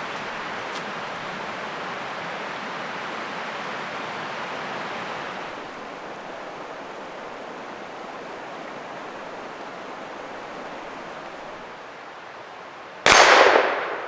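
Steady rushing of a nearby creek, which drops lower about halfway through. About a second before the end comes one sudden loud bang that rings out and fades over about a second.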